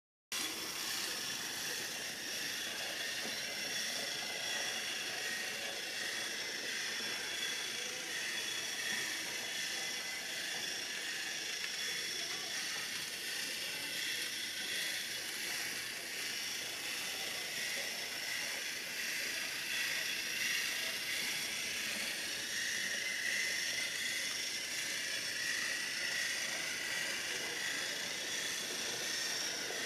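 A steady hiss of background noise.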